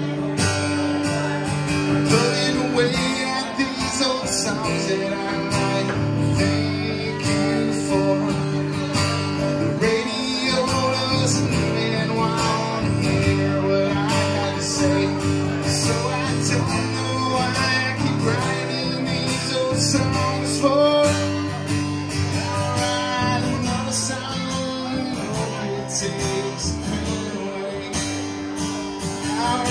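Acoustic guitar strummed in a steady rhythm, with a man singing at times.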